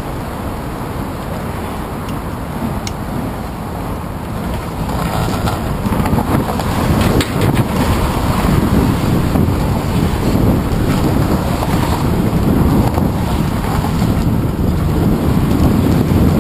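Wind rushing over a handlebar-mounted camera's microphone on a moving bicycle, mixed with the hum of traffic on the adjacent roadway. The noise grows louder about five seconds in, as the bike leaves the enclosed tower walkway for the open span.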